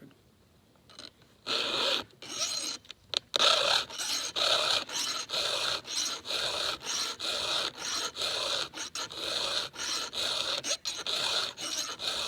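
Round chainsaw file rasping back and forth across the cutters of a new Husqvarna X-Cut saw chain in quick, even strokes, about two a second, starting about a second and a half in. This is the chain's first sharpening, with the file taken down into the gullet.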